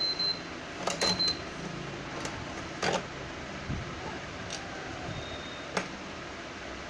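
Hands fitting a baby tricycle's metal push-handle rod into its frame bracket: several sharp clicks and knocks, the clearest about a second in, near three seconds and near six seconds, over a steady background hum.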